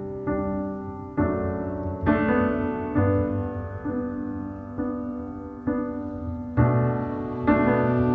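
Slow instrumental music: piano chords struck about once a second, each ringing and fading before the next.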